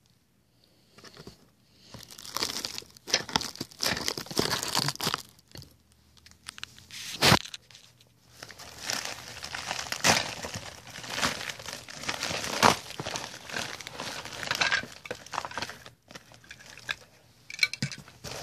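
A padded mailer being torn open and its contents handled: dense crinkling and tearing of paper and plastic packaging, with one sharp snap about seven seconds in.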